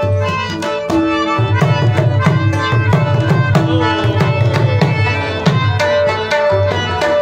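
Instrumental passage of Pashto folk music: tabla played in a quick rhythm, its deep bass strokes bending in pitch, over a harmonium holding steady notes, with rubab plucking.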